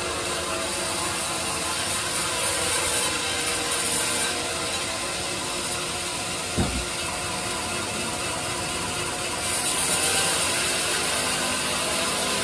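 Band sawmill blade cutting through a teak log as the carriage feeds it, a steady mechanical running and sawing noise. A single low thump sounds about six and a half seconds in, and the cutting noise grows louder and hissier a few seconds later.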